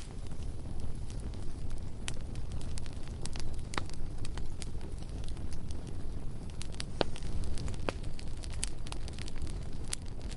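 Bonfire burning: a steady low rumble of flames with irregular crackles and sharp pops of burning wood.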